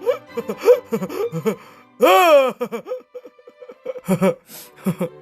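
Wordless vocal exclamations, gasps and short laughs, with one loud drawn-out cry about two seconds in, over background music.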